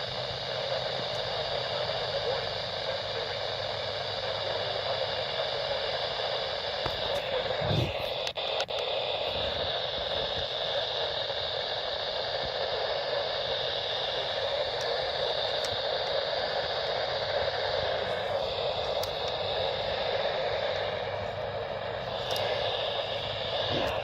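Radio static from a receiver tuned to an alert broadcast: a steady hiss with a faint hum under it, broken by a brief dropout and a few clicks about eight seconds in.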